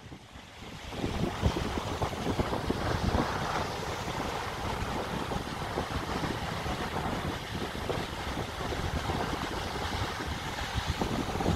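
Rushing wind and water noise with wind buffeting the microphone: a rough, uneven roar heavy in the low end, with no steady tones.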